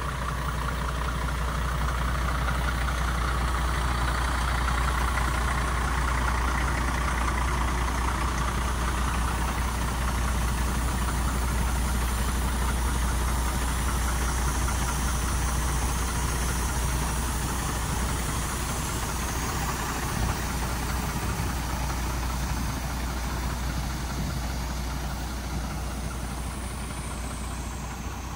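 MAN TGM 18.250 truck's six-cylinder diesel engine idling steadily, with a deep even hum.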